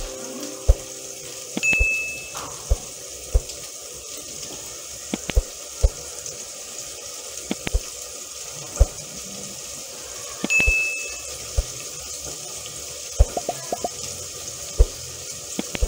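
Masala sizzling in oil in an aluminium pot, with a spoon stirring it and clicking and scraping against the pot. Two brief high tones sound, about two seconds in and again about ten and a half seconds in.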